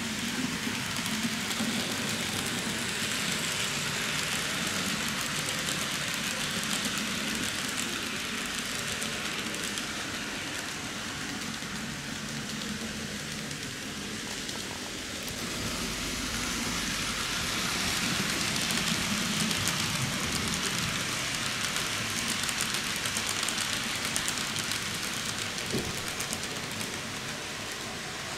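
N-gauge model train, a TOMIX C57 steam locomotive with coaches, running on the layout's track: a steady, even rolling hiss.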